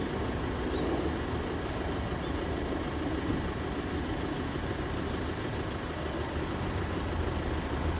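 Steady low outdoor background rumble with no distinct event. A few faint, short, high rising chirps come through between about five and seven seconds in.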